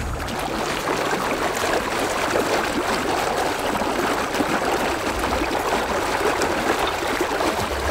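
Irrigation water gushing and bubbling up around the lid of a pasture flood-irrigation valve, a steady rushing splash.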